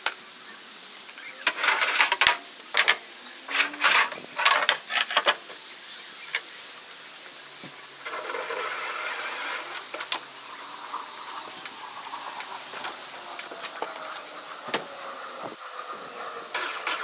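Steel loading ramps of a recovery truck's beavertail bed being unclipped and pulled out: a run of metal clanks and rattles, then a couple of seconds of scraping about eight seconds in, then lighter knocks and one more clank near the end.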